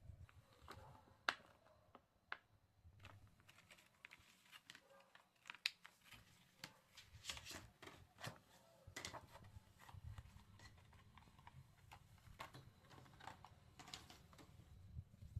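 Faint close-up handling sounds: scattered soft taps and clicks with short scratchy rustles. The sharpest taps fall about a second in and near six seconds.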